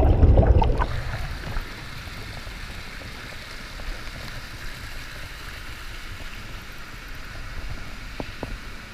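Hot tub jets churning the water, very loud and close for about the first second with the camera in the bubbling water, then a steady rush of bubbling jets and a small wall waterfall pouring into the pool.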